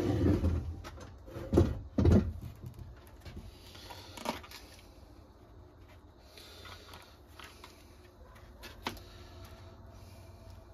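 Mallet knocks on a leather stamp: a cluster of thuds in the first couple of seconds, the loudest two about half a second apart, then a few lighter taps and clicks.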